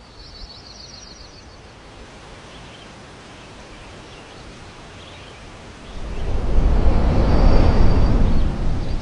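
Outdoor ambience with small birds chirping and trilling, a quick trill near the start and scattered chirps after. About six seconds in, a loud low rushing noise swells in and drowns them out.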